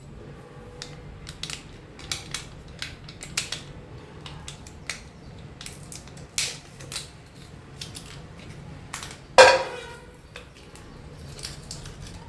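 Things being handled, as in kitchen work with dishes and utensils: irregular clicks and light knocks, with one loud ringing clank about nine seconds in.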